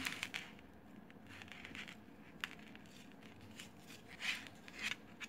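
Faint beadwork handling sounds: beads clicking lightly against each other and the thread hissing in several short strokes as it is drawn through them and pulled tight.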